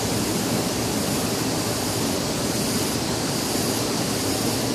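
Steady rushing of a flowing river, an even hiss of running water with no breaks.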